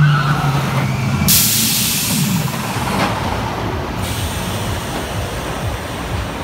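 Top Thrill Dragster's hydraulic launch. A steady low hum breaks off about a second in, then comes a loud hiss for nearly three seconds as the train is fired down the launch track, fading into a lower rushing rumble.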